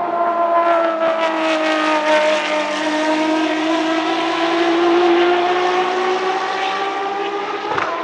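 Ferrari FXX K EVO's V12 engine at racing speed, crackling for the first couple of seconds as the revs sag slightly. The engine note then climbs steadily as the car accelerates away.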